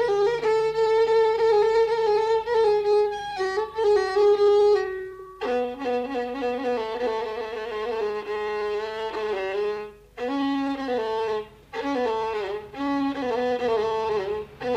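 Instrumental break in an Arabic song: a violin plays a wavering, ornamented melody over a lower accompanying line, with short pauses about five and ten seconds in.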